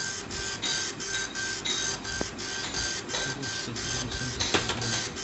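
Epson LX-310 nine-pin dot matrix printer printing a Windows test page: the print head buzzes across the paper line after line in a steady rhythm of about four passes a second.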